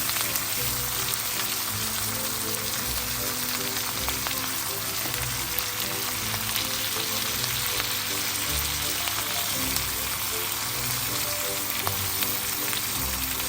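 Food sizzling and crackling in a hot pan, a steady spitting hiss with scattered pops, over soft background music.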